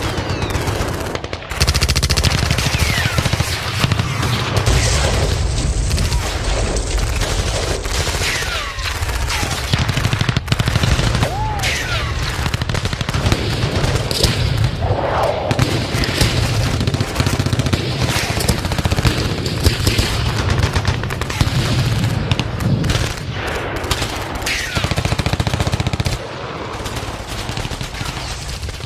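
Battle sound effects: dense gunfire with machine-gun bursts over a steady low rumble, with a few falling whistles; it gets quieter near the end.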